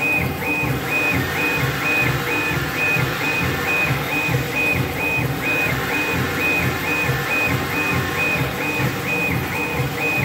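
Laser head gantry of a STYLECNC stone engraving CNC machine raster-scanning a photo into a granite plaque: its drive motors give a high whine on each back-and-forth pass, about two passes a second, each with a low pulse.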